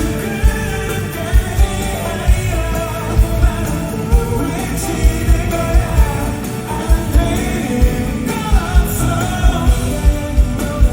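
Live pop-rock band with a singer, played loud through the venue's sound system, with a heavy kick drum beating under the voice and instruments.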